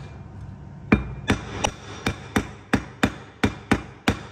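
Copper-and-hide mallet tapping on a Ford Transit Mk7 front wheel hub, a regular run of sharp blows about three a second starting about a second in. The tapping helps seat a new wheel bearing onto the stub axle.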